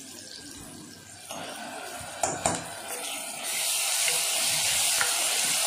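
Onions and ginger-garlic paste frying in hot oil in a pressure cooker: a soft sizzle that swells into a loud, steady sizzle about three and a half seconds in as the paste is stirred through, with a few knocks of a metal spoon against the pot around two seconds in.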